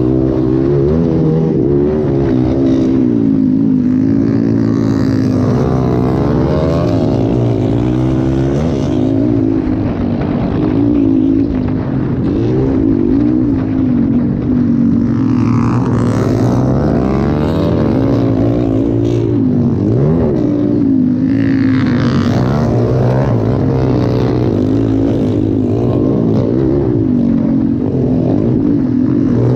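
Motocross dirt bike engine racing under hard throttle, heard from a camera mounted on the bike, its revs rising and falling continuously through the whole stretch.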